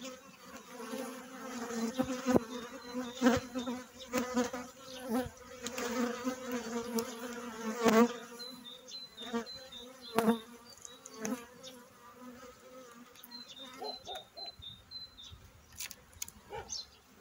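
Honeybees buzzing around an open hive in a steady hum, with scattered clicks and knocks as the wooden frames are handled.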